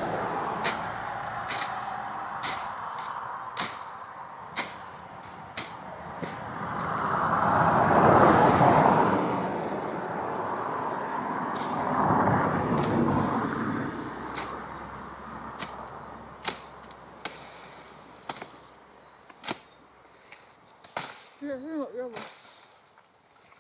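A bush knife cutting through undergrowth, with sharp strikes about once a second and leaves and brush rustling in two louder swells. A short warbling call comes near the end.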